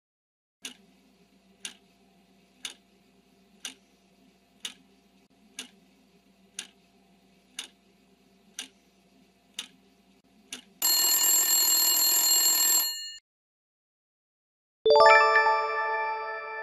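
Quiz countdown-timer sound effect: a tick once a second, eleven in all, over a faint hum, then an alarm bell rings for about two seconds as time runs out. After a short pause a bright chime sounds and rings out slowly as the answer is revealed.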